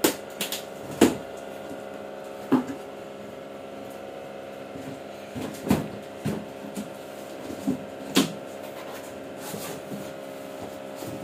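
Cardboard carton being opened by hand: irregular knocks, taps and scrapes as the box and its flaps are handled, about a second or more apart, over a steady background hum.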